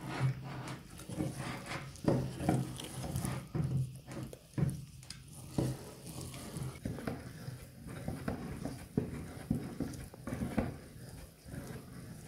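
Hand-cranked cast-iron meat grinder from about 1898 mincing raw meat, its crank turning blades that chop the meat. The result is an irregular run of knocks and clatters.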